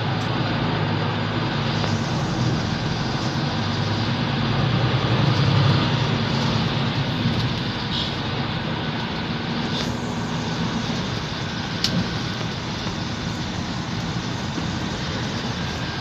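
Mercedes-Benz Citaro bus heard from inside the passenger cabin while under way: engine and drivetrain running with road noise, swelling to their loudest about five seconds in and then easing off. A few sharp clicks or rattles come later.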